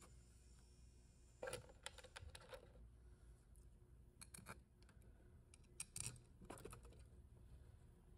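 Faint scattered clicks and scrapes of small screws and metal parts being handled and set into an aluminium VW 01M transmission valve body, the sharpest about a second and a half in and again around six seconds in.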